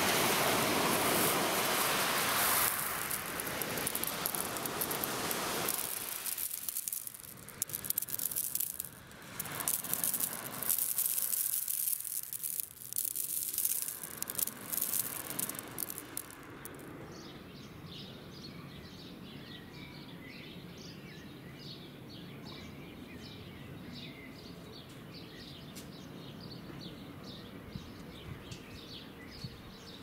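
Sea surf washing over a pebble beach, steady at first and then coming in separate surges with quieter gaps. About halfway through it gives way to birds chirping over a faint steady background.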